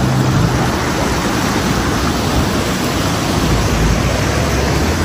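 Fast mountain river rushing loudly and steadily, water surging against a Maruti Gypsy as it wades in to door depth. The Gypsy's engine hum is heard under the water only for about the first half-second.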